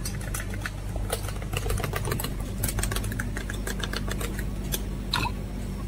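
Metal spoon stirring a drink in a small stainless steel mug: rapid, irregular metal-on-metal clinks, over a steady low hum. A short falling squeak about five seconds in.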